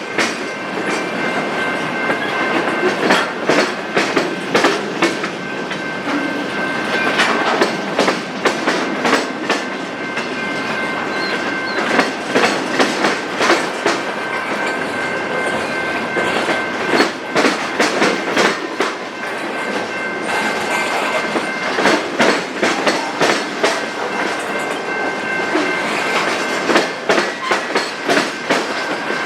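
Freight train cars rolling past, their wheels clicking over rail joints in a continuous uneven clatter, with a thin, steady, high-pitched ring running underneath.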